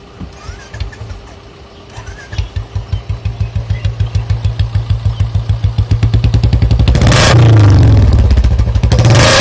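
Royal Enfield Classic single-cylinder engine idling with an even, low thump that grows louder, then blipped twice near the end, revs rising and falling.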